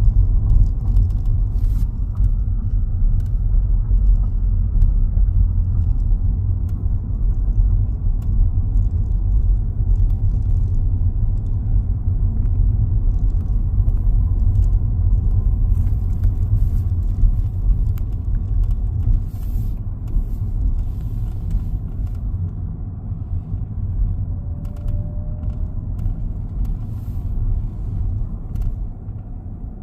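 Steady low road and drivetrain rumble inside the cabin of a Ford Fusion/Lincoln MKZ on the move, with scattered light clicks and creaks from around the right-side B-pillar, coming most often around the middle. The cause is unknown; the owner suspects it comes from outside the cabin and doubts it is the seat belt pretensioner.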